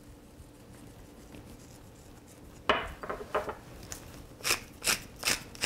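Kitchen utensils knocking and clinking against cookware. It is quiet for the first couple of seconds, then come a few soft knocks and a run of about five sharper clinks.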